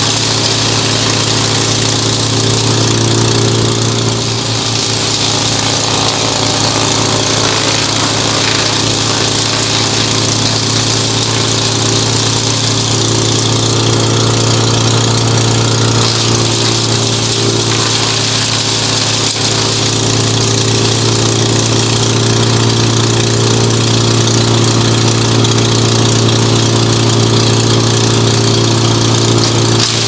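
Hansa wood chipper running steadily while half-dead tree branches are fed through and chipped. Its steady drone wavers briefly a couple of times.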